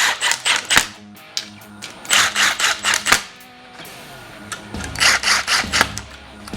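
Background music, with a ratchet wrench clicking in three short runs of quick clicks as bolts on an engine side cover are run in.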